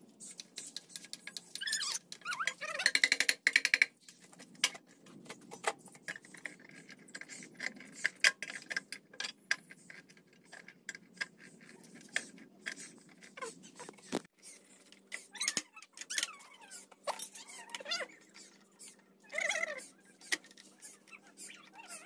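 Clicks and knocks from hands working a plastic switch enclosure and a rotary switch, with a loud cluster of knocks a few seconds in. Squeaky calls that bend in pitch come and go, the clearest near the end, like a cat meowing.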